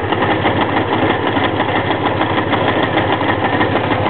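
1984 Honda V65 Magna's V4 engine idling steadily on full choke with no throttle. It keeps running only with the choke on.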